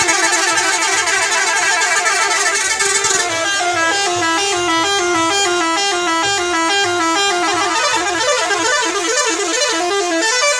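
Indonesian bus telolet horn: a set of multi-tone horns sounding a held chord, then from about three seconds in playing a quick tune of short stepped notes, about three a second.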